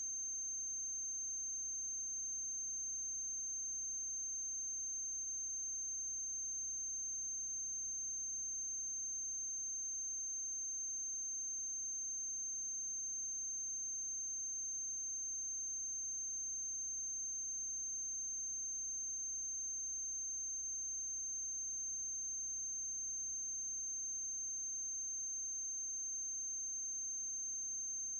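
Steady electrical hum and a thin, unchanging high whine, with no other sound: the noise floor of a silent film's transfer.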